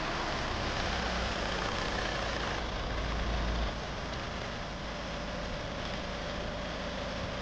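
A car running, with steady engine and road noise; the low rumble drops away about three and a half seconds in.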